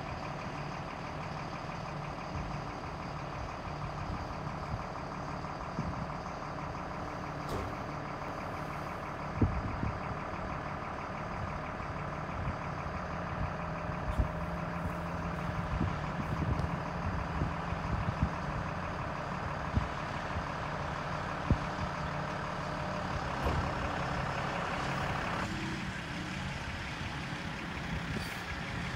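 Stewart & Stevenson M1078 military truck's diesel engine running steadily as the truck drives across a field, heard at a distance, with a few sharp knocks along the way. The engine sound changes abruptly near the end.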